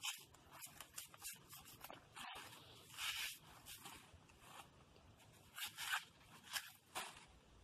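Fibrous banana pseudostem sheaths being peeled and torn apart by hand: several short rasping tears at irregular intervals.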